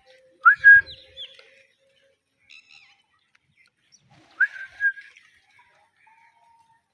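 Ringneck parrot giving two short whistled calls that sweep up in pitch, about four seconds apart, with a fainter high chirp between them.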